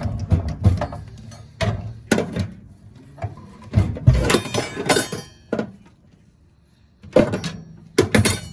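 Metal parts and tools clanking and rattling as the gas valve is worked off a mobile home furnace's burner assembly: a string of sharp knocks and scrapes, thickest in the middle, with a short quiet pause before a last few clanks near the end.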